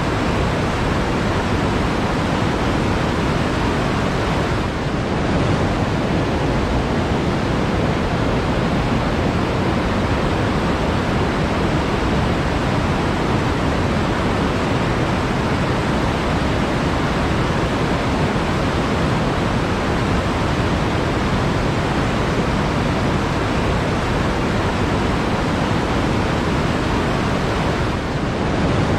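Flowing water in a forest stream rushing in a steady, even hiss, with no distinct splashes or drips standing out.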